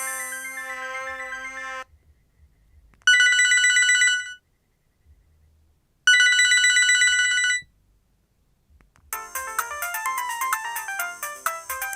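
LG KP105 mobile phone playing its polyphonic ringtones through its own speaker. A held chord stops about two seconds in. Then a trilling, bell-like ring sounds twice, each about a second and a half long and three seconds apart, and a fast melody starts about nine seconds in.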